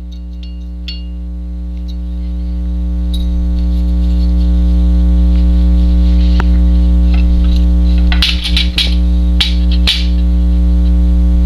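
Steady electrical mains hum that swells louder over the first several seconds, with a few small clicks and rustles of handling near the end.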